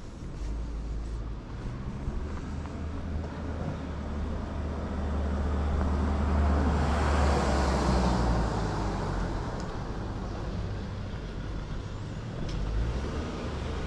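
A car passing by on the road, its tyre and engine noise growing to its loudest about halfway through and then fading, over a steady low rumble.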